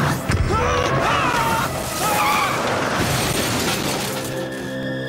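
Tense cartoon background music, with a sudden crashing impact at the very start and a second hit just after. Wavering, gliding screeches follow for about two seconds.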